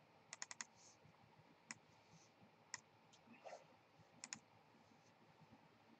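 A few faint, sharp clicks at a computer while the live-stream chat is being opened: a quick run of four in the first half second, then single clicks about a second apart and a close pair near the middle.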